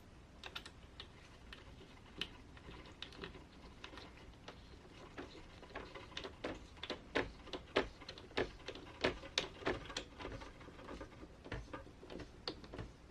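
Scattered light clicks and taps of small hard plastic and metal parts being handled, as an RC crawler's beadlock wheel and tire is fitted to the truck. The clicks come irregularly, several a second at the busiest, thickening in the middle.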